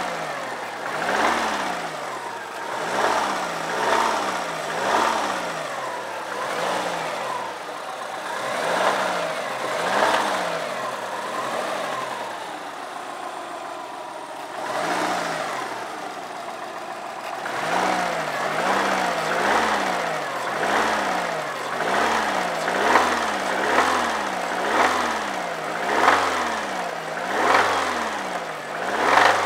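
2002 Subaru WRX's turbocharged flat-four engine being revved over and over, its pitch rising and falling about once a second, settling to a steadier idle for a few seconds around the middle. The engine has a knock and rattle that the owner takes to mean it needs replacing.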